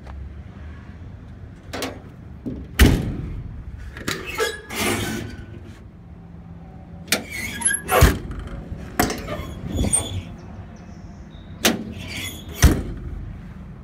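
Metal utility-bed compartment doors and their latches being opened and handled: a series of clanks and clatters, with three sharp metallic bangs spread through.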